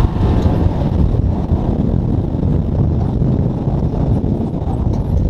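Side-by-side utility vehicle driving along a dirt trail: its engine running steadily, mixed with wind buffeting the microphone in a dense low rumble with no clear pitch.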